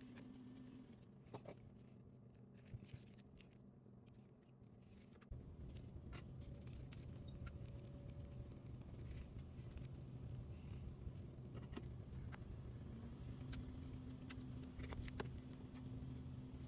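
Faint scattered clicks and ticks, like small tools and phone parts being handled on a workbench, over a steady low hum that grows louder about five seconds in.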